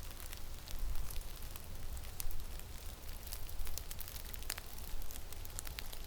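Snowstorm wind buffeting the microphone as a low rumble, with many scattered sharp ticks throughout.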